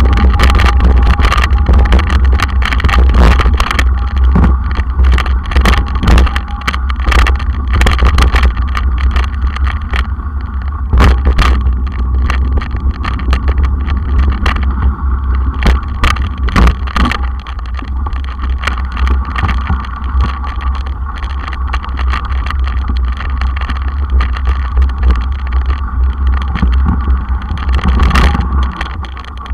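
Wind buffeting a mountain bike's camera microphone as the bike rides fast over a rough trail and path, a steady low rumble with frequent knocks and rattles from the bike jolting over bumps.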